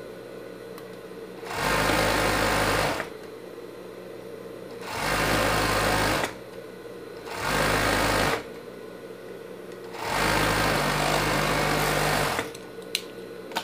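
Industrial overlock sewing machine running in four bursts of one to two seconds each, with short pauses between, as a stretched knit cuff is stitched onto a sleeve. A few sharp clicks near the end.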